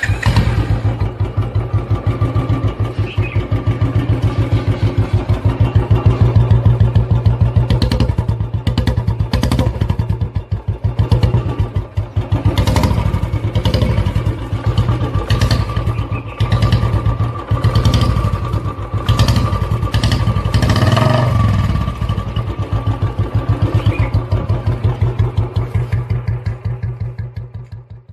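Royal Enfield Bullet's single-cylinder engine running with its steady, even thump. The revs change a few times in the middle, and the sound fades out at the end.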